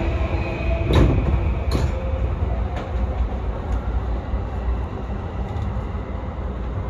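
Yamanote Line electric commuter train running along the track, heard from inside the driver's cab: a steady low rumble with a few sharp wheel clacks, the loudest about a second in.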